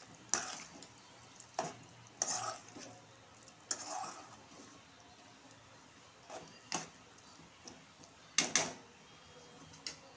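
Metal spoon stirring beef gravy in a metal pot, scraping and clinking against the pot's side and base in short, irregular strokes every second or so, the loudest about three-quarters of the way through.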